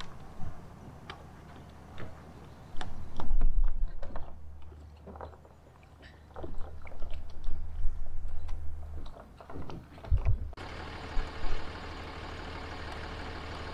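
Wind rumbling on the microphone, strongest a few seconds in, with scattered light knocks and crunches. About ten seconds in the sound changes abruptly to a steady low hum.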